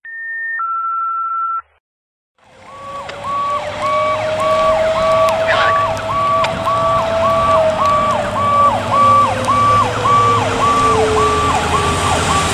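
A short two-note electronic tone, then after a brief gap a fire engine's GE Powercall siren in a fast yelp, about two sweeps a second. Beneath it a lower siren tone slowly rises and then falls away, with tyre hiss on a wet road.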